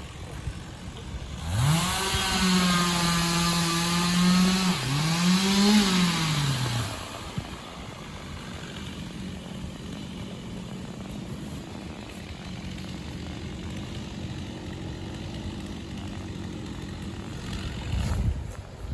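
Two-stroke chainsaw revved up to a high whine, eased off for a moment and revved again, then dropping back to a quieter steady running sound. A short louder low rumble comes near the end.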